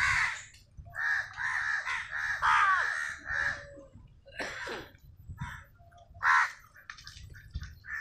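A flock of house crows cawing, several birds calling over one another in a run of harsh caws between about one and four seconds in, then single caws every second or so for the rest.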